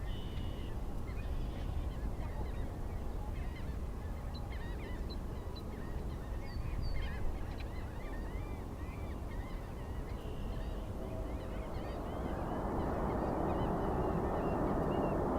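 Many birds calling in short honking and chirping notes over a steady low rumble of jet noise. About twelve seconds in, a jet airliner's noise grows steadily louder as it approaches.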